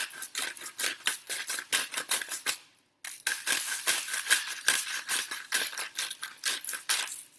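Hand-twisted salt and pepper grinders grinding seasoning: rapid ratcheting, gritty clicks, with a brief pause about two and a half seconds in before the grinding resumes.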